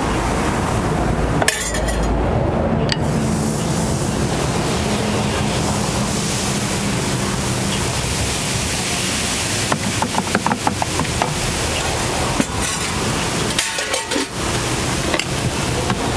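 Crepe batter sizzling on a hot round crepe griddle as it is spread thin with a wooden spreader. A run of light utensil clicks and clinks comes about two-thirds of the way through, and a few more near the end.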